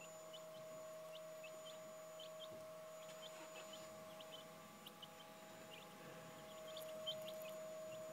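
Young Welsummer–Buff Orpington cross chicks peeping: many short, high, falling peeps scattered irregularly, faint, over a steady hum.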